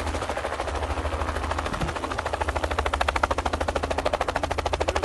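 Helicopter rotor blades chopping rapidly and evenly, with a steady low hum beneath. The chop grows a little louder about three seconds in.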